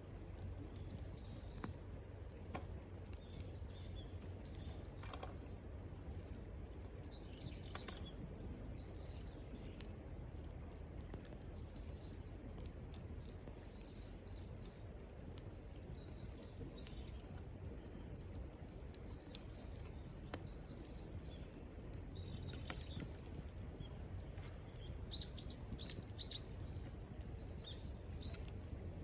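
Firewood burning in a campfire, crackling with scattered sharp pops and one loud snap about two-thirds of the way through. Birds chirp in the background, more often near the end.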